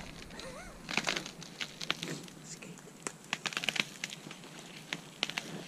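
Thin ice on a frozen puddle crackling and ticking under a person's boots: many short, sharp cracks at irregular intervals.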